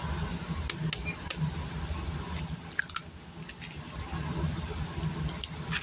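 Eggs being taken from a carton and cracked into a bowl: scattered light clicks and taps of eggshell, over a steady low hum.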